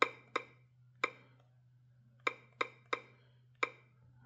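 Key presses on the Qolsys IQ Panel 4's touchscreen keypad as a user code is typed in: seven short, sharp clicks at uneven intervals, with a faint low hum underneath.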